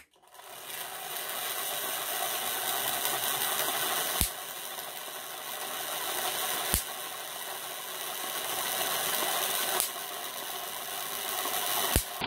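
Hand-cranked Wimshurst machine running: its spinning discs and rubbing brushes make a steady whir, and four sharp spark cracks snap across the electrodes, a few seconds apart.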